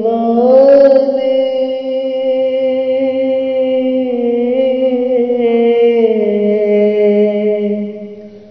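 A single voice singing one long drawn-out line of an Urdu naat, holding its notes for several seconds with slight bends in pitch, then fading away near the end.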